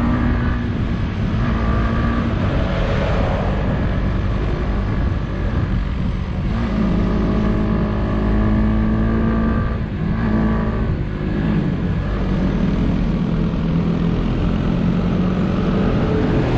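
Motorcycle engine running under way, with a steady rush of noise; its pitch shifts a few times as the revs change.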